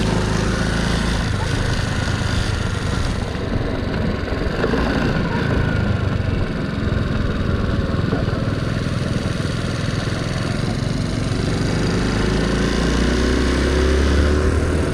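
Honda C90 step-through moped's small single-cylinder engine running under way, its pitch rising and falling with the throttle and growing stronger and deeper near the end.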